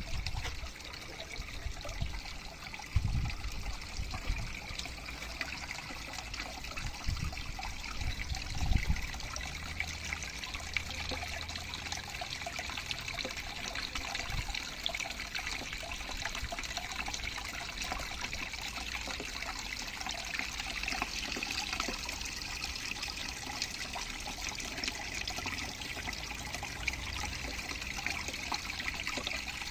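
Water trickling steadily from a small waterfall, with a few low thumps in the first nine seconds or so.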